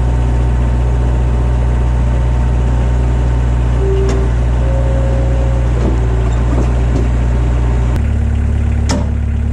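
Skid steer engine idling steadily. Its note shifts about eight seconds in, and a sharp click follows near the end.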